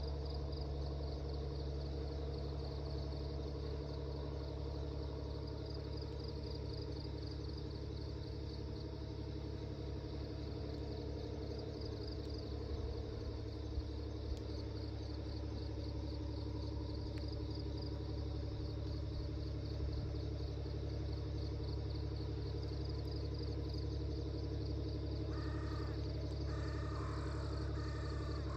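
Insects chirping in a fast, steady pulsing trill over a constant low hum, with a few short calls near the end.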